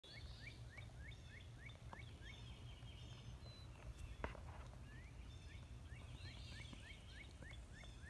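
A bird calling runs of short upslurred notes, about four a second, twice, with fainter chirps of other birds higher up and a single sharp knock about four seconds in.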